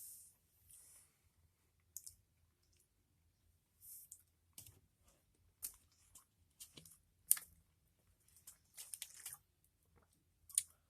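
Faint, irregular crunching and clicking of a person chewing hard, dry wasabi peas.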